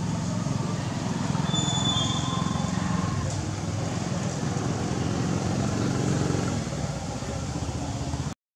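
Steady low rumble of road traffic with motorbikes, cutting out briefly near the end.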